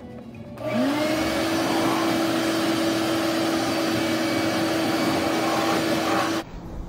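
A vacuum cleaner switches on about half a second in, its motor whine rising in pitch and settling into a steady run, then cuts off suddenly near the end.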